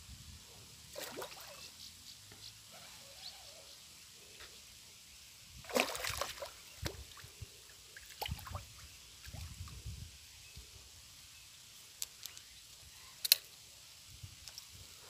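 Water splashing and sloshing in short bursts as a hooked fish thrashes at the surface by the bank, loudest about six seconds in, with a sharp click near the end.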